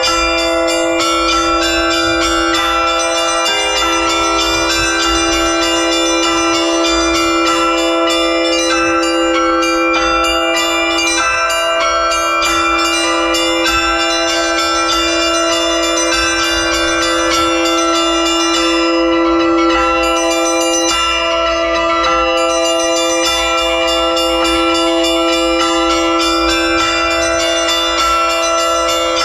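Russian Orthodox church bell ringing (zvon) by a bell-ringer on a belfry set of bells cast in 1999. Many bells are struck in quick succession, their tones overlapping in one continuous ring over a steady lower bell tone.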